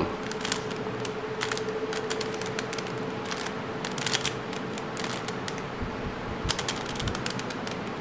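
Plastic clicks of a stickerless 3x3 Rubik's cube as its layers are turned by hand through an algorithm, the clicks coming irregularly, a few at a time, as each face snaps round.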